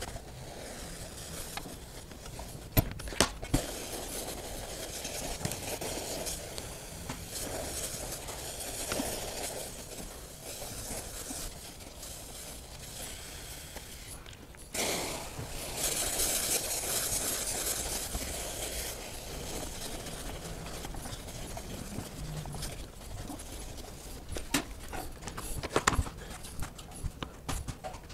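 Clothes iron sliding and pressing over a damp cloth laid on wood strips, to steam them for bending, with a few sharp knocks. About halfway through comes a hiss lasting several seconds, and near the end the wooden strips click and knock as they are handled.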